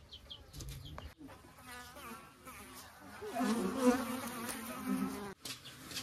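A flying insect buzzing close to the microphone, its hum wavering up and down in pitch and swelling louder midway before cutting off suddenly about five seconds in.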